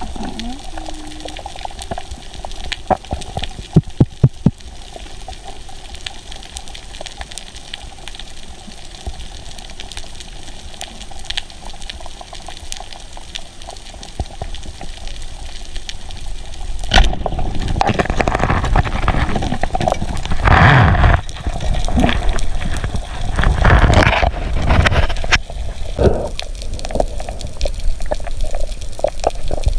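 Underwater sound picked up by a diving camera: a steady wash of water noise with a few sharp clicks about four seconds in. From a little past halfway, louder, uneven bubbling and rushing water takes over.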